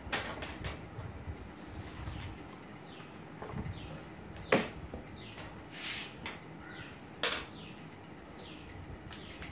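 Objects being handled and set down on a wooden table: a few sharp knocks, the loudest about halfway through and another near three-quarters, with a brief rustle of handling between them. Faint short downward-sliding bird chirps repeat in the background.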